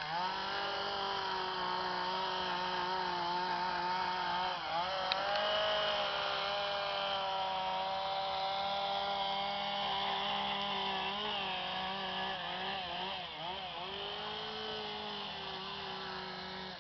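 Handheld chainsaw running at high revs, with a wood carver at work. It revs up at the start, dips and wavers in pitch a few times, and cuts off at the end.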